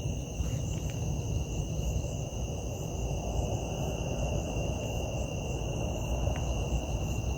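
Insects trilling in a steady high-pitched drone, over a low rumble.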